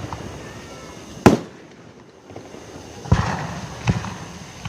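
Fireworks shells bursting in sharp bangs: one about a second in, then two more near the end, about a second apart, the first of these trailing off in a crackle.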